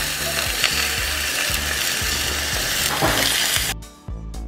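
Raw chicken breasts sizzling loudly in hot olive oil in a cast iron skillet as they are laid in. The sizzle cuts off suddenly about three and a half seconds in, leaving background music.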